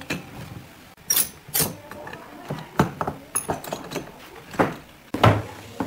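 Irregular wooden knocks and clacks, about six sharp ones spread across a few seconds, as a slatted wooden chair frame and its pipe clamps are handled on a workbench.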